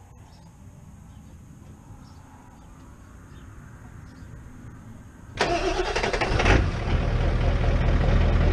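1997 Ford 7.3-litre Power Stroke turbo-diesel V8 cranking for about a second and firing, then settling into a steady idle. Before the start, about five seconds of faint outdoor quiet.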